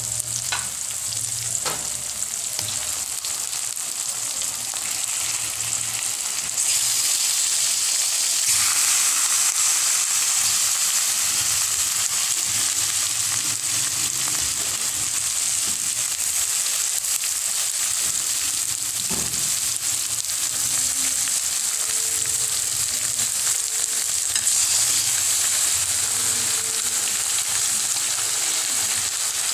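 Raw chicken pieces sizzling in hot oil in a wok with sautéed onion, garlic and tomato, a steady frying hiss that grows louder about seven seconds in.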